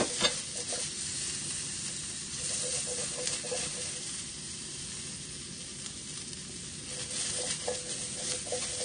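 Asparagus spears sizzling in a frying pan on a gas hob, a steady frying hiss with small crackles as the pan is shaken to toss them. A few sharp clicks sound about a quarter second in.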